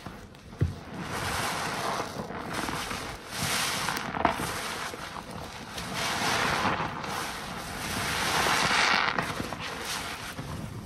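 Foam-soaked car wash waffle sponge squeezed and kneaded by gloved hands in a sink of thick suds: wet squelching and crackling foam in about four long swells, with one sharp click about half a second in.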